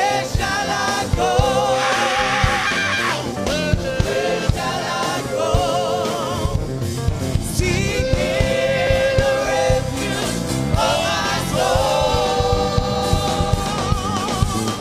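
Gospel music: voices singing with vibrato over a rhythmic band accompaniment.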